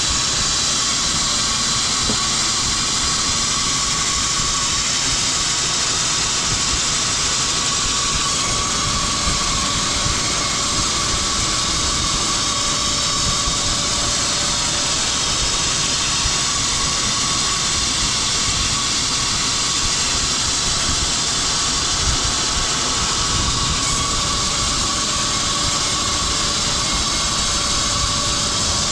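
Woodworking machinery running steadily in a pine-board production line: a loud, even whirring hiss with a faint steady tone, unchanging throughout.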